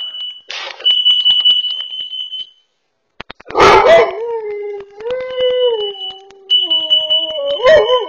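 A carbon monoxide alarm sounds a steady high-pitched tone, signalling carbon monoxide in the house. About three and a half seconds in, a large mastiff-type dog starts howling over it in long, wavering howls.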